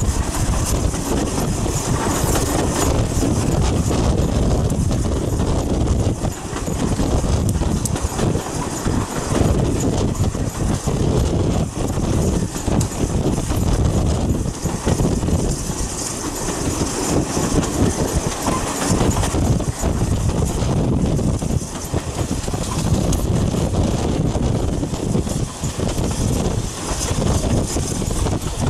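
Steam-hauled heritage train running at speed, heard from a coach window just behind the locomotive: a loud, steady rumble of wheels on rail with many short knocks.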